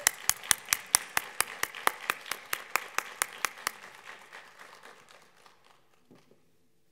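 Audience applause, with one pair of hands clapping loud and close at about four or five claps a second above the crowd's clapping. It dies away after about five seconds.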